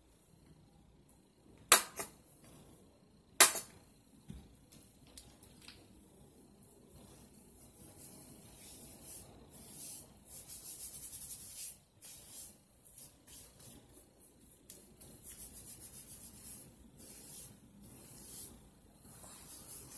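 Two sharp clicks from a plastic conditioner bottle in hand, then hands working detangling conditioner through wet hair: a quick, rhythmic squishing and rubbing hiss that comes and goes.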